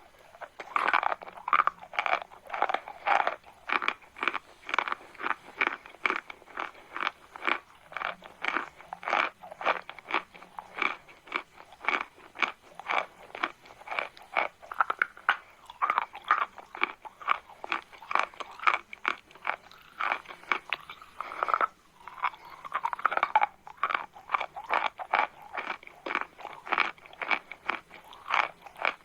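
Close-miked chewing of chalk: a run of crisp crunches, about two or three a second, with a brief pause about three-quarters of the way through.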